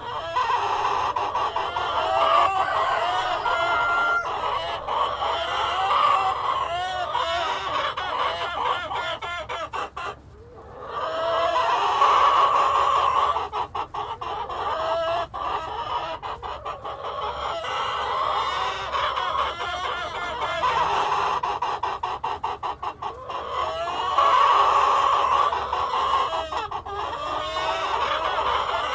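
A flock of hens clucking and cackling continuously, several birds calling over one another, with a rooster crowing among them.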